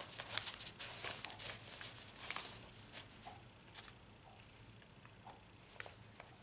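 Paper rustling and crinkling as the pages and a tag of a handmade paper junk journal are handled, with small taps and clicks. It is busiest in the first couple of seconds, then thins to faint handling with a few isolated clicks.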